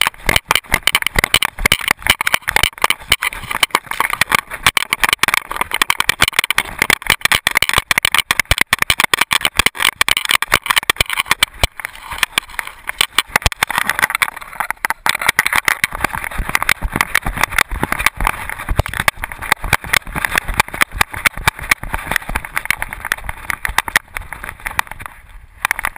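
Rapid, continuous clattering of a loosely mounted GoPro camera knocking in its harness mount on a moving whippet's back, over a steady rushing noise. The clatter stops suddenly near the end.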